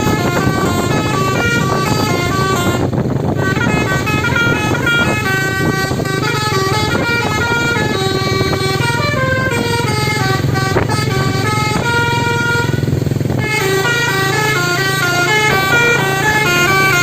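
A bus's telolet horn, a set of multi-tone air horns, playing long runs of quick notes that step up and down in pitch, pausing briefly twice, over the steady low running of the bus engine.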